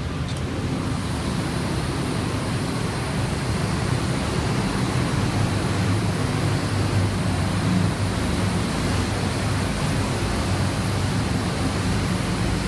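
Steady rush of air over a low machinery hum from a running abrasive blast room's equipment. A single click comes just after the start, and the hiss grows louder about a second in as the door opens into the room.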